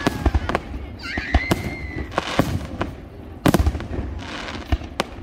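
Aerial fireworks going off in rapid succession: sharp bursts and reports with crackling between them, and a whistle rising and levelling off about a second in. A cluster of the loudest bangs comes about three and a half seconds in.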